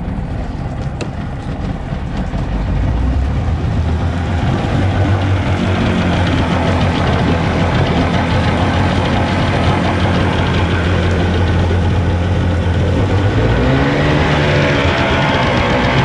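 Evinrude 50 hp two-stroke outboard running in a tub of water after a cold start, given a little throttle: it gets louder about two to three seconds in and holds there, with a rise in pitch near the end.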